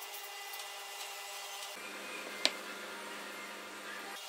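Low steady hiss and hum, with one short sharp tap a little past the middle.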